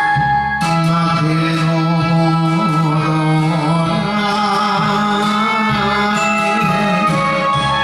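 Enka music: a band backing track with sustained melody notes over a recurring bass line.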